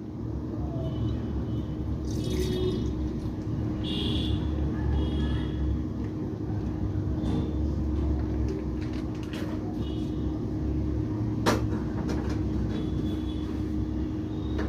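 A steady low rumble runs throughout while a plastic milk pouch crinkles a few times as milk is emptied from it into a steel pot. A single sharp click sounds about two-thirds of the way through.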